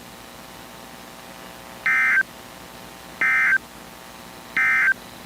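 Emergency Alert System end-of-message (EOM) code: three short, loud digital data bursts about a second and a third apart, over a faint steady hum. The bursts mark the end of the broadcast alert.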